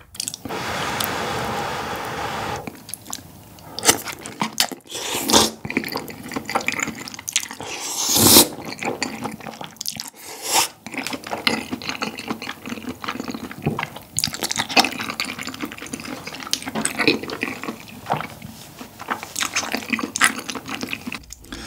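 Close-miked eating of chewy Chinese flat glass noodles in spicy tteokbokki sauce: a long wet slurp in the first couple of seconds, then chewing with many short sticky smacks and a few further slurps, the loudest about a third of the way in.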